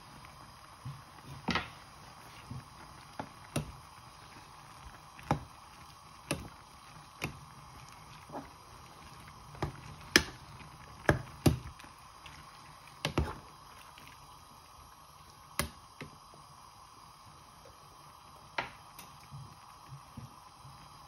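Metal ladle knocking and clinking against a saucepan of simmering instant noodles as the contents are stirred: a string of separate sharp knocks, the loudest bunched together about ten to thirteen seconds in, over a faint steady hiss.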